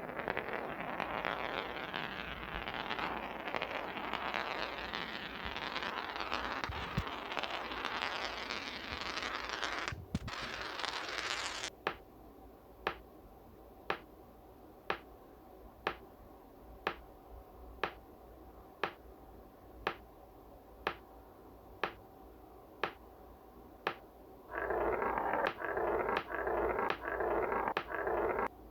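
Marbles rolling along a marble track with a continuous rattling run that stops abruptly about twelve seconds in. Then come sharp single clicks about once a second, and near the end a rolling rattle starts again with the clicks still going.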